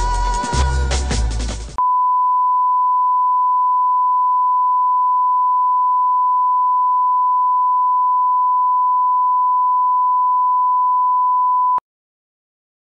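Music breaks off about two seconds in and a steady, single-pitched test tone takes over: the reference tone that goes with colour bars. It runs for about ten seconds and stops abruptly with a click.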